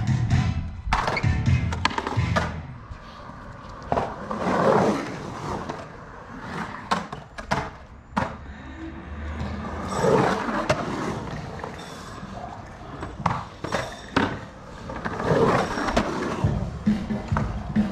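Skateboard wheels rolling across the concrete walls and floor of an empty swimming pool, swelling and fading three times as the rider carves back and forth, with sharp clacks of the board. Background music plays underneath.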